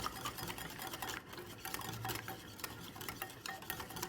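A whisk stirring a thick barbecue marinade in a mixing bowl, making a quick, uneven run of light clicks and taps against the bowl.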